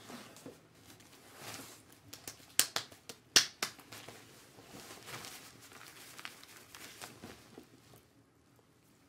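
Close-miked rustling and crinkling of hands moving through hair and over a plastic salon cape. A quick run of sharp clicks comes about two and a half to three and a half seconds in, the last one the loudest.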